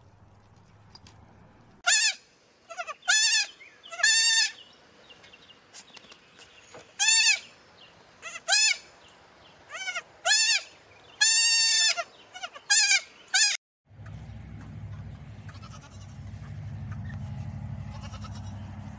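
Young goat kids bleating: about a dozen short, high-pitched bleats, each rising and falling in pitch, the longest about 11 seconds in. They stop abruptly near the end, giving way to a low steady rumble.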